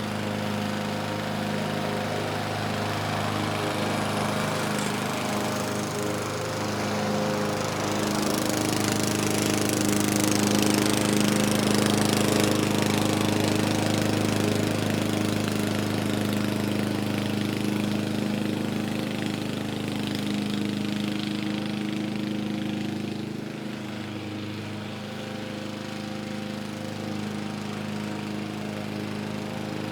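Lawn mower engine running steadily at a constant speed. It grows louder and brighter about a quarter of the way in, then eases back and softens a little near the end.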